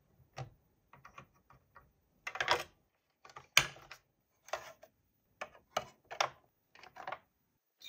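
Hard plastic pieces of a toy camper playset clicking and knocking as they are handled and pressed into place: a string of irregular small clicks, with a short scraping rattle a little over two seconds in and a sharper snap about three and a half seconds in.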